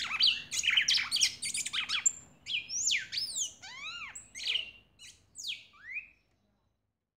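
Red-cowled cardinal (galo-da-campina) singing: a rapid run of varied whistled notes sweeping up and down, thinning to a few spaced slurred notes and stopping about six seconds in.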